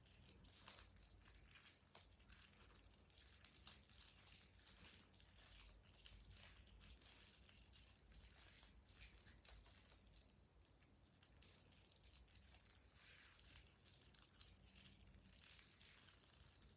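Quiet, continuous crackling and squishing of slime being worked and mixed, many small pops and crackles.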